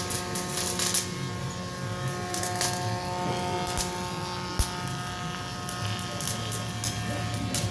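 A steady electrical buzz with several held tones, broken by scattered short, sharp crackles.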